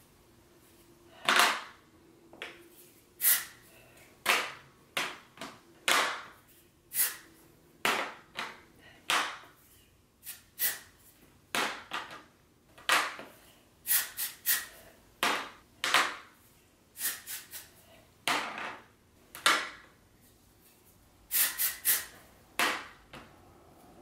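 Hair being teased (backcombed) with a comb: short scratchy rasps as the comb is pushed down through sections of hair toward the scalp, roughly one a second, some in quick runs of two or three.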